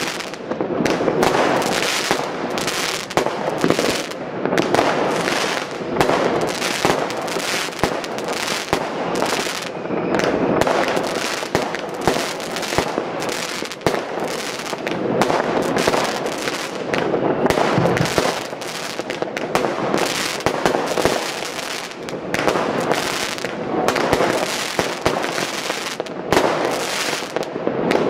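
A dense, unbroken barrage of fireworks: rockets bursting and firecrackers banging in rapid, overlapping succession, some close and many far off. The bangs come so thickly that they merge into a constant crackle.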